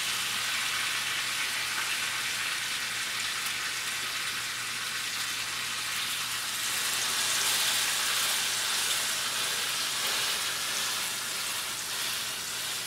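Rib-eye steak sizzling in butter and olive oil in a frying pan, held on its edge with tongs to sear the fat side. A steady frying hiss that swells slightly a little past the middle.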